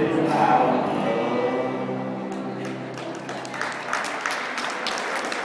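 Music with singing voices plays and fades out over the first three seconds. Applause starts about three and a half seconds in.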